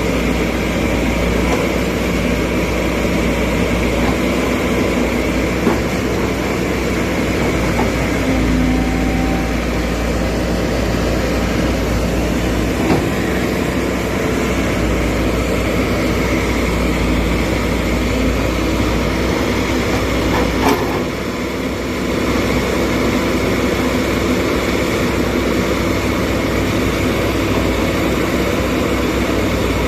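Hydraulic excavator's diesel engine running steadily, with a few sharp metallic knocks from the machine. The engine sound dips briefly after the third knock, about two-thirds of the way through.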